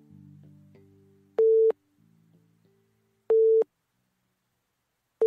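A short, loud electronic beep on one steady pitch, repeating about every two seconds. Soft synthesizer-like music fades out beneath it in the first couple of seconds.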